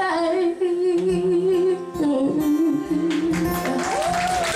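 A woman's voice holding long, wordless notes with vibrato over guitar accompaniment, closing a song live; audience applause and whistles start to rise near the end.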